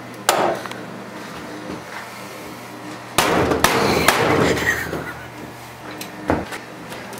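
A few knocks and bangs: a sharp knock just after the start, a louder clattering bang a little past three seconds in that trails on for over a second, and a dull thud near six seconds.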